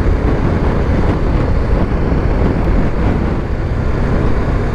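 BMW G310 GS single-cylinder engine running steadily at road speed, mixed with a steady rush of wind on the microphone.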